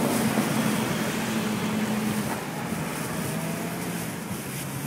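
A motor hums steadily under a haze of wind noise on the microphone; its pitch drops slightly about two seconds in.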